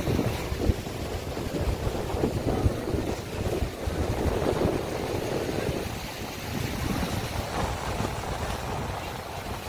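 Wind buffeting the microphone in uneven low rumbles, over the steady wash of sea surf.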